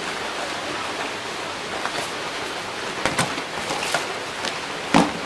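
Small metal parts of a Derya Mk-12 shotgun being handled during disassembly: a few sharp clicks and taps, the loudest near the end, over a steady hiss.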